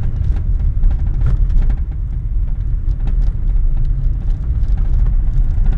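Car driving on an unpaved gravel road, heard from inside the cabin: a heavy, steady low rumble of tyres and suspension on the rough surface, with frequent small clicks and rattles.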